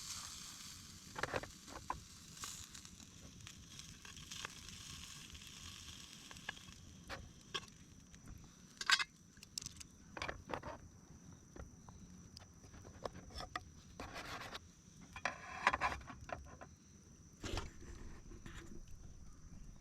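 Wood campfire crackling, with irregular pops and snaps over a soft hiss.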